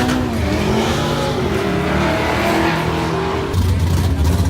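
Drag-racing car with its tyres squealing and its engine running, the pitch wavering up and down. About three and a half seconds in, this gives way to a deep, steady engine rumble.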